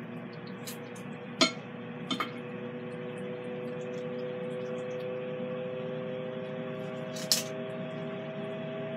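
Steady hum of a Ninja Foodi XL Grill's fan running while it preheats on air crisp, with a few sharp clicks of kitchen shears snipping through catfish.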